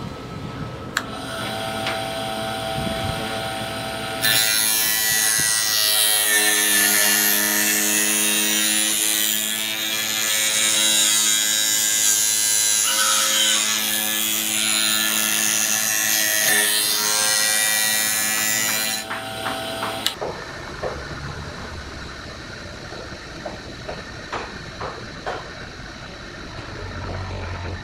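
An electric power tool runs with a steady motor hum. A loud, harsh cutting or grinding noise sits over it from about four seconds in to about nineteen seconds in. The motor stops about twenty seconds in, followed by scattered clicks and knocks of handling.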